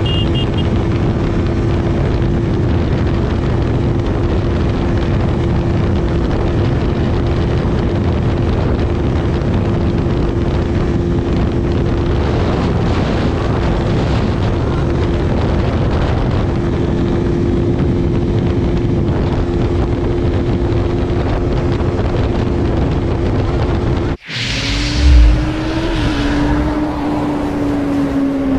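Motorcycle riding at a steady cruise, its engine holding one steady note under dense wind rush on a helmet-mounted camera. Near the end the sound cuts abruptly to a different shot: a loud low thump, then the engine note wavering and starting to rise as the bike revs.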